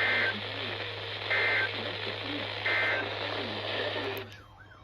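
Weather radio receiver sounding the EAS/SAME end-of-message code after a National Weather Service warning: three short, identical bursts of digital data about 1.3 seconds apart, over the steady hiss and hum of weak reception. The hiss drops out near the end as the transmission ends.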